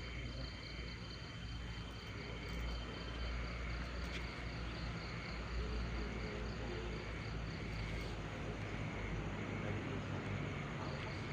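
Night insects chirping in a steady pulsing rhythm over a low background rumble.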